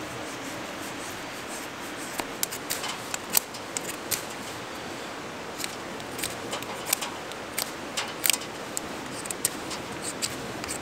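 Scattered sharp clicks and light snaps of thin split-wood kindling being handled and set against logs in a metal fire pan while a campfire is laid, starting about two seconds in, over a steady background hiss.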